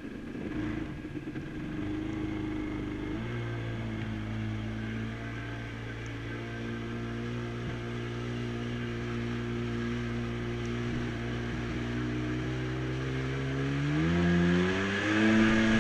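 Jet ski engine idling steadily, then revving up in two quick rises near the end as the craft gets under way.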